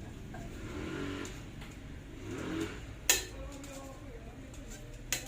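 Two sharp knocks or clinks, one about three seconds in and one near the end, from hand tools striking parts during a furnace repair, over faint background voices.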